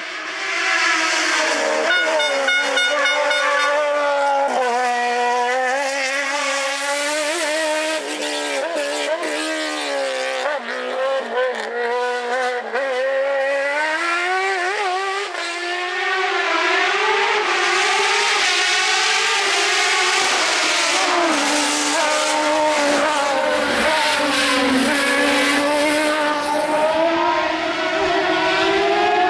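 Fiat 126 hillclimb prototype's Suzuki motorcycle engine revving hard, its pitch repeatedly climbing and dropping as it shifts gear and lifts off through the slalom.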